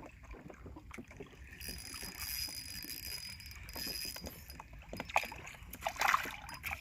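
Small fishing boat on the water: a steady low rumble of water and wind, a louder hiss for a couple of seconds near the start, then a few sharp knocks near the end.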